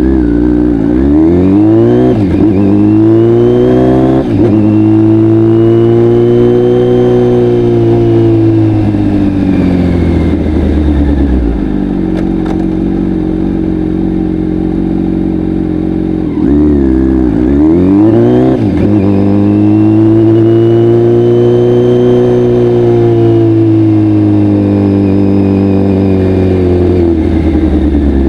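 Kawasaki Z900's inline-four through a full Akrapovic exhaust system, accelerating hard through several quick upshifts, then holding a steady speed and easing off. The same run of rising revs and upshifts comes again about 17 seconds in.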